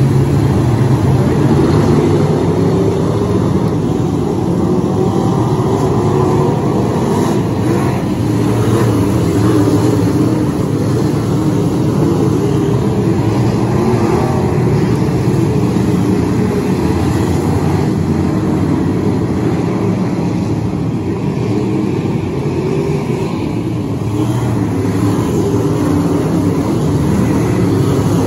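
A pack of dirt-track race cars running laps together: a loud, continuous blend of their engines, easing off slightly for a moment about three-quarters of the way through.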